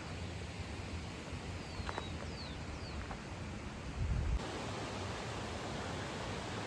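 Steady rush of flowing water, with a few short, high, falling bird chirps about two seconds in and low thumps on the microphone around four seconds in.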